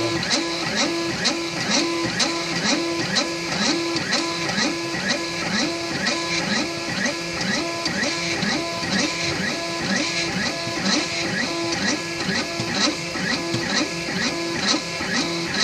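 XYZprinting da Vinci 3D printer's stepper motors whining as the print head shuttles rapidly back and forth laying infill at high speed (about 100 mm/s). Each pass is a short, rising and falling motor tone, repeating steadily about three times a second.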